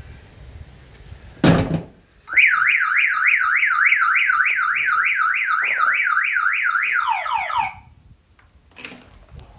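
A single thump, then a car alarm siren sounding a fast repeating whoop of quick rising sweeps, about three and a half a second, for about five seconds before it winds down in falling tones.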